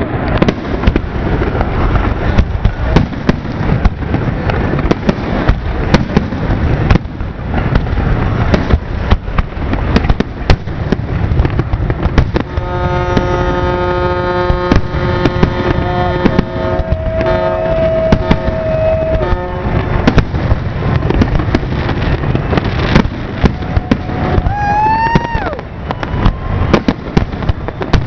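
Aerial fireworks display: a rapid, unbroken barrage of shell bursts and launch bangs with crackle. A held pitched tone sounds for several seconds in the middle, and a short rising-and-falling whistle comes near the end.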